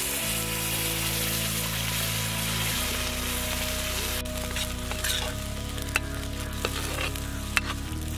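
Thick curry purée sizzling in hot fat in a pan, with a steady hiss. From about four seconds in, a spoon stirs and scrapes against the pan, giving scattered sharp clicks over a lighter sizzle.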